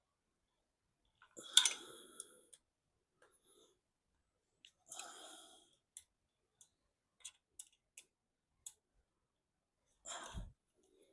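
Workshop handling noises of engine parts and tools being moved on a bench. A sharp knock comes about a second and a half in, then a short scraping rustle, a few scattered light clicks, and a dull thump near the end.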